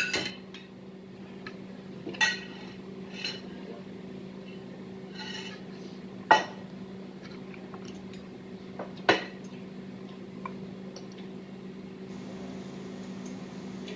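Metal spoons and forks clinking against plates and foil serving trays: sharp single clinks a few seconds apart, the loudest about six and nine seconds in, over a steady low hum.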